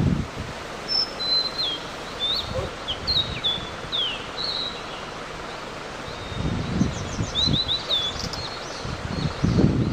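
Blue-and-white flycatcher singing: a loose series of short, high chirps and down-slurred whistles, with a quick run of notes about seven seconds in. Low rumbling thumps come and go beneath the song, the loudest near the end.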